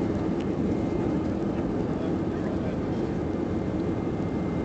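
Steady cabin noise of an Airbus A320 in flight, heard from a seat over the wing: the jet engines and rushing airflow make an even drone, with a faint high whine held underneath.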